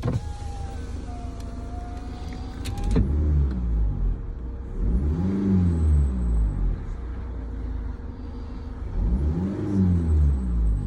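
Range Rover Evoque with its engine running: a thin squeak held for about three seconds, ending in a few sharp clicks, then the engine revved up and back down twice.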